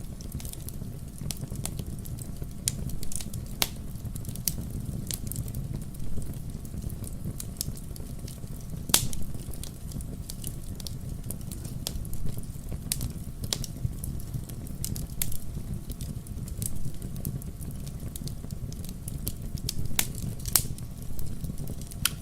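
Campfire burning, wood crackling and popping irregularly over a steady low rumble of the flames, with a few louder sharp pops.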